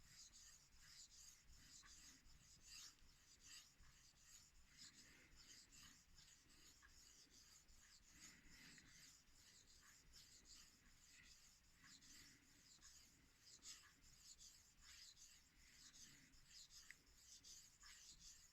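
Faint, repeated scraping strokes of a knife edge pushed and pulled across an 800-grit Naniwa whetstone, at a steady rhythm of passes.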